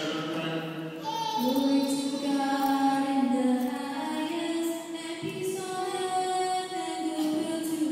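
Voices singing a slow church hymn in long held notes, in the higher range of women's or children's voices.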